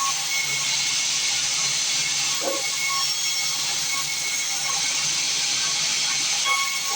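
Sawmill band saw running with a steady hiss and a high whine.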